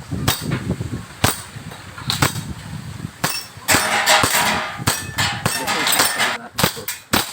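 An airsoft gun firing a course of fire: a string of sharp shots at an irregular pace, a few about a second apart at first, then quicker pairs and clusters in the second half.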